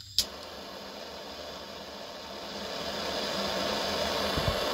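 Hand-held gas blowtorch on a propane-mix canister being lit: the gas comes on with a single sharp click as it ignites. The flame then burns with a steady hiss that grows a little louder.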